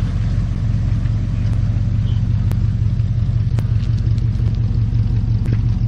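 1959 Dodge Coronet's engine idling, purring with a steady low rumble.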